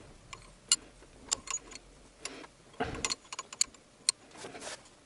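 Steel wrenches clicking and tapping against the fuel-line fittings at an engine's fuel rail as the fittings are tightened with a 17 mm spanner: scattered sharp metallic ticks, a few in quick pairs, with a brief rustle about three seconds in.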